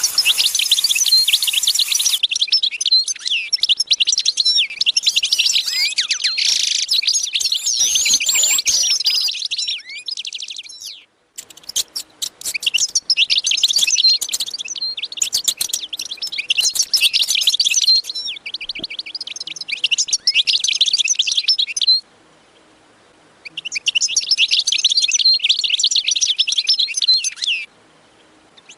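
Dense, rapid chirping of many small birds, breaking off abruptly for a second or so three times.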